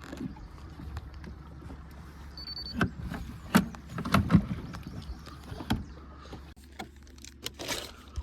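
Scattered knocks and bumps in an aluminum fishing boat over a low steady hum, with a brief high beep a couple of seconds in.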